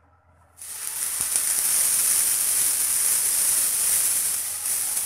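Onion paste dropped into hot mustard oil in a frying pan, sizzling loudly and steadily; the sizzle starts suddenly about half a second in.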